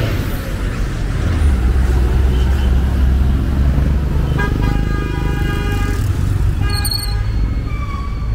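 Road traffic with a heavy engine rumble passing close by. A vehicle horn then sounds one long honk about halfway through and a short toot near the end.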